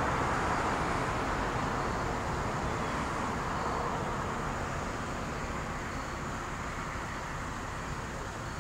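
Road traffic noise: a steady wash of tyre and engine noise from passing vehicles that slowly fades.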